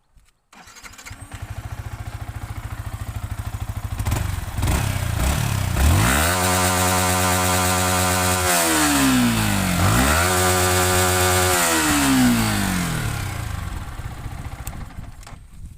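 Yamaha R15's 155 cc single-cylinder engine, starting up about half a second in and idling with an even beat, then revved up twice, each time held high for about two seconds before dropping back, and dying away near the end.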